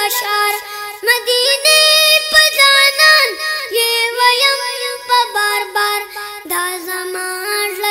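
A boy singing a Pashto naat (Islamic devotional song) in a high voice, holding and bending sung notes through a continuous melodic line.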